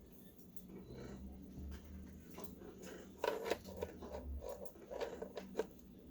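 Scattered light clicks and knocks of coffee maker parts being handled and fitted together during reassembly, with a busy cluster about three seconds in and another sharp click about five and a half seconds in.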